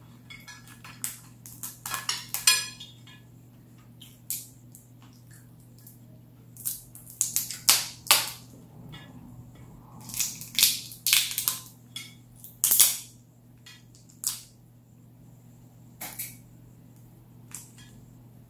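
Shell of a boiled crawfish being cracked and peeled by hand: sharp crackling snaps that come in several bursts with short pauses between.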